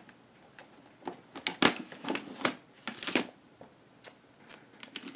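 Plastic pens and markers clicking and clattering as they are handled and dropped into a box: a string of separate sharp clicks and short rattles.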